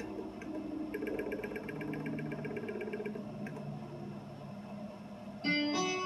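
Digital keyboard playing a hammered dulcimer sound with a chorus effect: held struck-string notes, with a fast flutter in the high tones for about two seconds. A louder chord is struck about five and a half seconds in and rings on.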